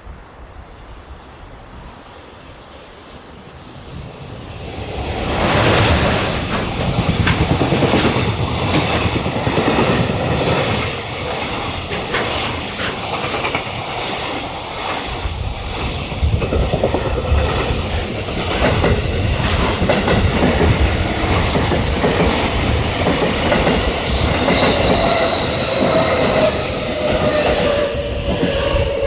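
A train running along the track past the platform. It is quiet at first, then swells from about four seconds in to a loud rumble with rapid clicking of wheels over rail joints. High-pitched wheel squeals come in during the second half, and a tone falls in pitch near the end.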